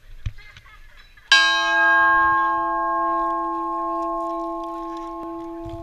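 A large hanging metal bell struck once about a second in, then ringing on with a slow fade.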